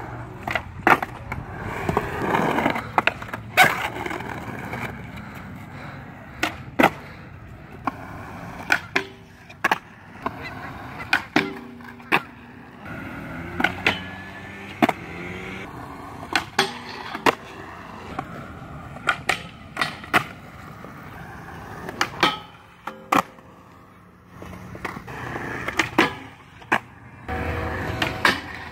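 Skateboard wheels rolling on concrete, broken by many sharp clacks of the board popping and landing, with the trucks grinding along a metal flat bar.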